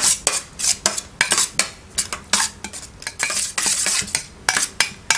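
Metal kitchen tongs clinking against a stainless steel bowl as chopped chicken is tossed in its marinade: a quick, irregular run of sharp metallic clicks.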